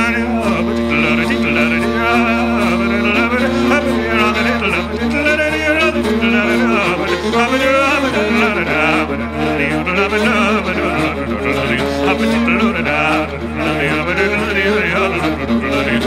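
Traditional Irish music: an ornamented, wavering melody over a steady, held low drone.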